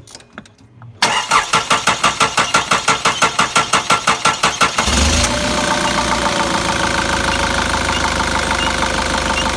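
Nissan Patrol's ZD30 four-cylinder diesel engine cranking on the starter, about five pulses a second, then catching a little under five seconds in and settling into a steady idle.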